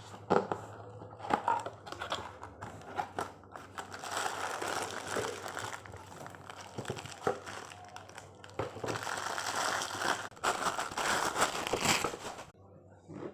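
Packaging crinkling and rustling as it is handled and pulled off a lunch box, with a few sharp clicks and knocks near the start and a long stretch of continuous crinkling, stopping near the end.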